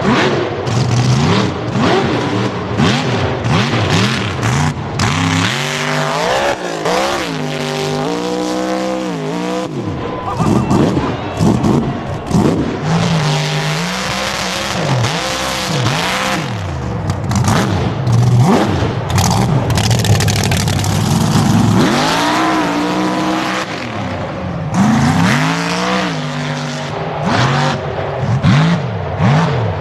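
Off-road vehicle engines revving hard, their pitch climbing and falling again and again, with rough noise and knocks around them.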